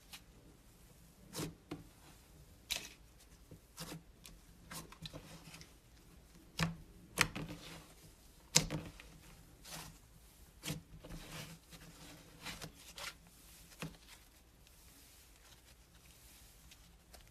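Slime being played with by hand: irregular sticky clicks, pops and crackles, over a dozen spread out, the loudest two in the middle, stopping a few seconds before the end.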